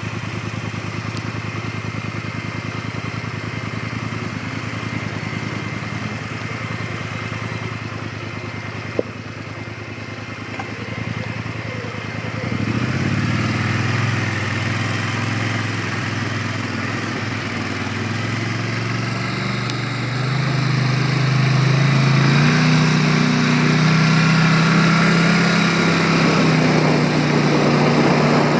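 ATV engine idling steadily, with a single sharp click about nine seconds in. About twelve seconds in the engine revs up, its pitch rising and shifting, and from about twenty seconds in it runs louder and steadier as the quad rides on.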